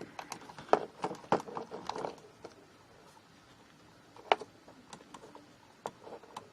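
Scattered clicks and light handling noise of electrical wires being twisted together into a twist-on wire nut, busiest in the first two seconds, with a few sharp single clicks later, the loudest about four seconds in.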